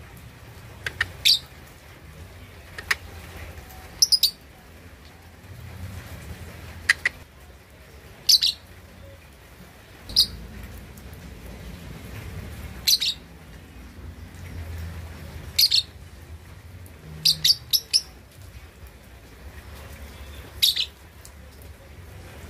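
Young lovebird, about two and a half months old, giving short sharp chirps every couple of seconds, some in quick pairs or threes. This is a juvenile still learning its song, not yet the full long trill.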